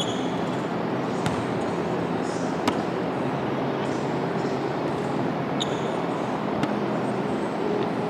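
Basketballs knocking on a hardwood gym floor, a few sharp single bounces, with a couple of short sneaker squeaks, over a steady rush of air from large drum fans.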